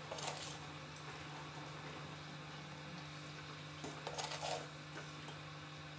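Metal spoon clinking against a stainless steel pan in two short bursts, one right at the start and another about four seconds in, over a steady low hum.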